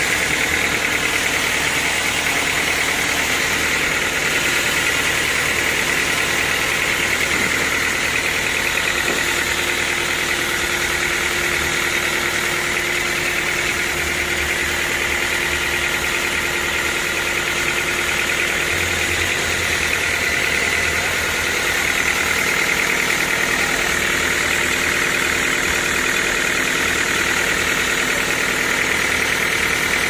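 Band sawmill running steadily as its blade saws lengthwise through a large mahogany log, a loud, constant machine drone with a high steady whine over it.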